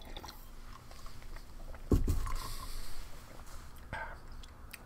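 Sips and swallows of MRE grape drink from a metal canteen cup, with small clicks and one heavy low thud about two seconds in.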